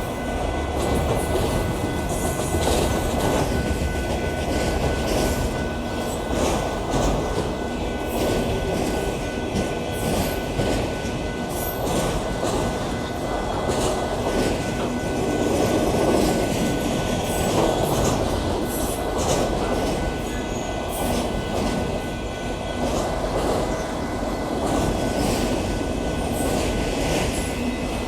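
Union Pacific auto train's autorack freight cars rolling past: a steady rumble of steel wheels on the rails, with many quick clicks from the wheels over rail joints and a faint steady high tone running through it.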